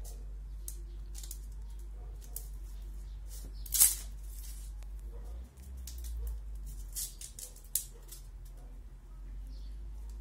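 Thin dry bamboo sticks being split and shaved with a knife: irregular cracking, scraping and clicking, with the sharpest crack about four seconds in and a few more near the end.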